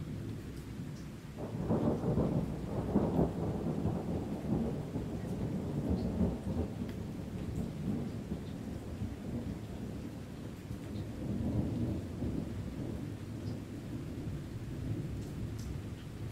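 Deep rolling thunder rumbling over steady rain, with scattered drops ticking. The rumble swells about a second and a half in, is loudest over the next couple of seconds, then rolls on and swells again later.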